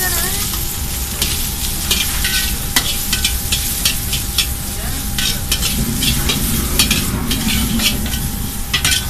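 Food sizzling in a hot pan as it is stir-fried, with frequent irregular scrapes and clicks of a utensil against the pan.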